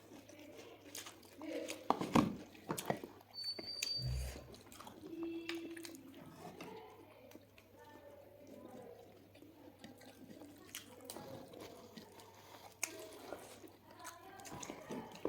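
Close-up eating sounds of someone chewing chicken: wet mouth smacks and many small clicks, loudest about two seconds in.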